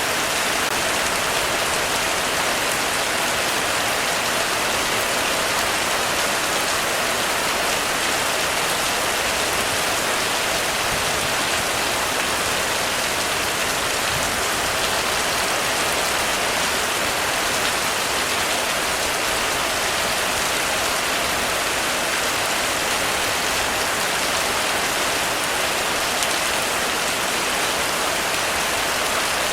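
Heavy rain falling steadily on a roof, an even, unbroken hiss of drops.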